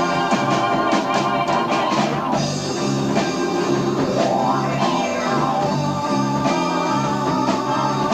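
Live progressive rock band playing, with electric guitar and keyboards over a bass line, on an amateur tape recording of the concert.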